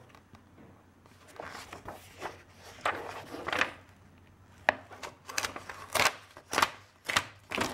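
Glossy magazine pages rustling and crackling as they are turned and handled, with several sharp paper snaps in the second half.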